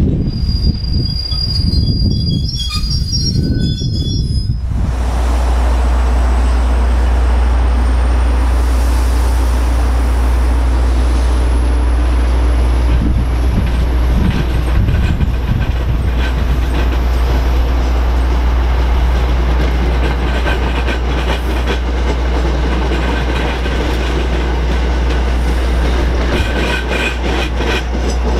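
Commuter train coaches rolling past: for the first few seconds the wheels squeal with thin high ringing tones. After an abrupt change comes a steady low rumble of a push-pull commuter train passing close by, with rapid clicking of wheels over the rails toward the end.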